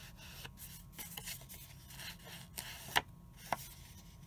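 Edges of a card-stock panel being inked: a small round ink applicator rubbed and scraped along the paper edge in a run of short strokes, with a sharp click about three seconds in and a smaller one just after.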